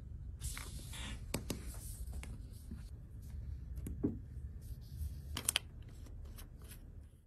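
Small clicks, taps and rustles of an iPhone 12 Pro being handled and pressed into a repair clamping fixture, with a sharp double click about five and a half seconds in. A low steady hum runs underneath.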